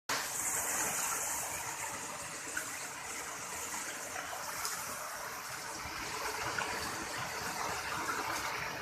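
Flowing water of a stream, running steadily.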